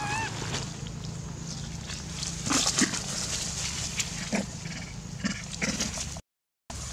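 Long-tailed macaques making short, sudden calls and grunts, several in a row, over a steady low hum. The sound cuts out for a moment near the end.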